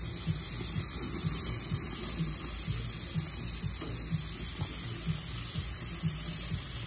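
Meat sizzling on a gas grill: a steady hiss over a low, uneven rumble.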